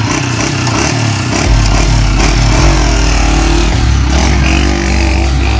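Motorcycle engine running, its pitch rising and falling as it revs and the bike pulls away.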